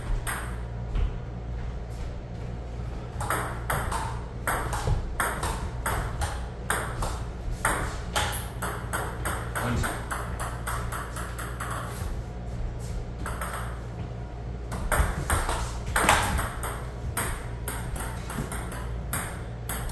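Table tennis rally: the ball clicking off the paddles and bouncing on the table in quick, irregular taps, with a brief lull partway through. A steady low hum runs underneath.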